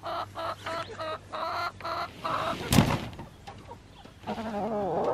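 Hens clucking in a quick run of short, repeated calls, with one loud thump about three seconds in, then more clucks rising and falling in pitch near the end.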